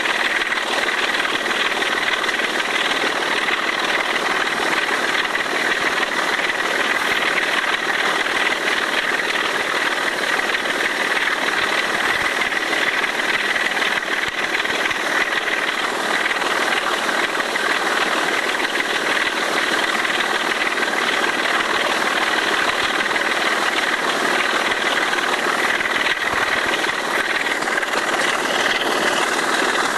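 Sulzer 6LDA28 diesel engine of a BR Class 25 locomotive working hard at full power, a loud, steady, unbroken engine sound.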